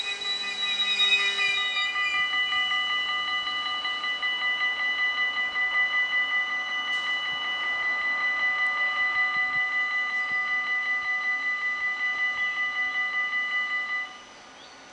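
NS DDZ double-decker train's brakes squeal as it comes to a halt, then a high electronic beeping, about three or four beeps a second, from the train's door warning signal, which cuts off suddenly near the end.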